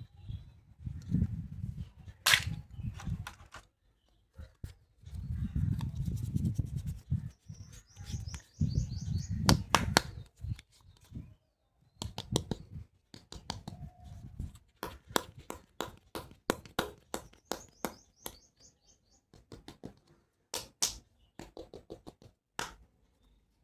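Plastic toy doctor-kit pieces being handled: many sharp clicks and taps with low rubbing and scraping between them, and twice a short run of quick high chirps.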